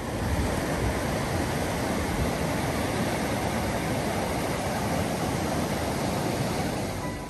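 Fast mountain stream rushing over rocks and bare rock slabs, a steady loud rush of water.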